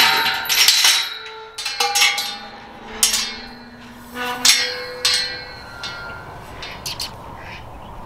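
A metal feed bowl clanking over and over as an animal eats from it or noses it about. Each knock rings briefly, and the knocks come irregularly, louder in the first few seconds.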